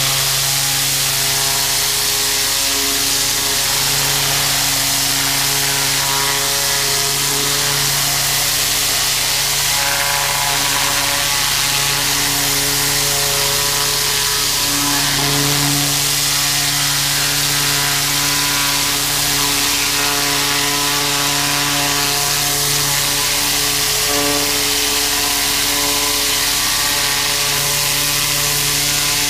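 A 4,000 PSI gas-engine pressure washer with a zero-degree tip running steadily. The engine drone, shifting slightly in pitch now and then, sits under the strong hiss of the water jet blasting a deer hide.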